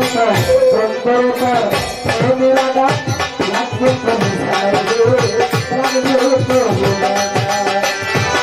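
Violin playing a folk melody over a steady hand-drum rhythm: an instrumental break in Bengali Baul music.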